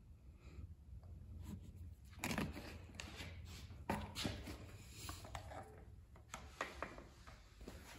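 Scattered light clicks, knocks and rustles of handling: oil bottle, funnel and dipstick being worked while topping off a small engine's oil. A low steady hum runs underneath.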